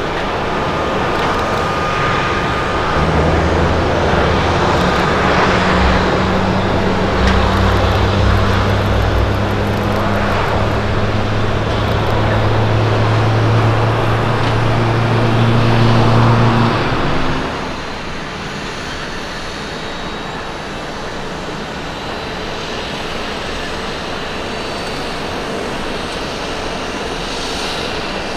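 StarFlyer Airbus A320's jet engines running as it rolls along the runway: a steady low hum over engine noise that cuts off abruptly about two-thirds of the way in. A quieter, even jet noise follows, from a JAL Boeing 737 coming in to land.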